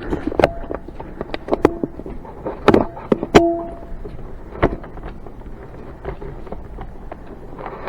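Scattered single airsoft gun shots and BB impacts, irregularly spaced sharp cracks and knocks, a couple of which ring briefly after the hit.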